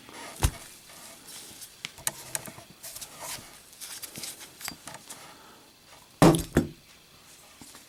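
Zippo lighter handled with small metallic clicks, then dropped onto a hard surface about six seconds in: a hard hit and a quick second strike as it bounces.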